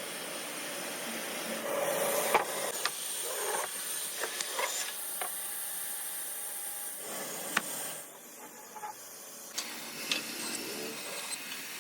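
Wood being worked by hand: rubbing and scraping with scattered sharp clicks and knocks over a steady hiss.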